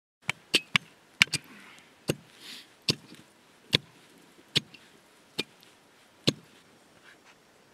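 Hand tools chopping a hole through lake ice: sharp single strikes, several in quick succession at first, then about one a second.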